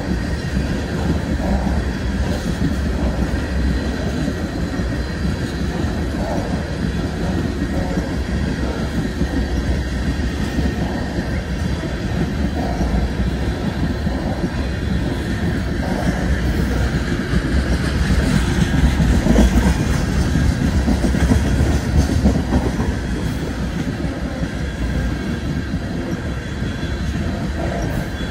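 BNSF freight train of tank cars rolling past, its steel wheels on the rails making a steady rumble with clicking, a little louder about two thirds of the way through.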